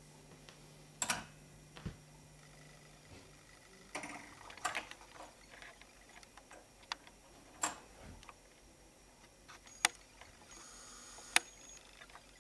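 An automatic record turntable returning its tonearm after the record ends: a series of sharp mechanical clicks and clunks as the arm lifts and swings back to its rest. A low hum stops about three and a half seconds in, and a few scattered ticks follow.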